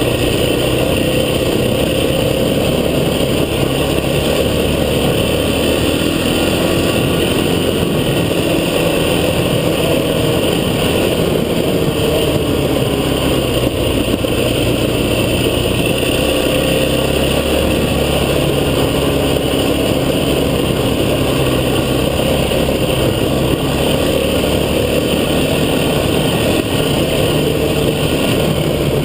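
Off-road vehicle engine running steadily and continuously, its pitch drifting a little up and down with the throttle.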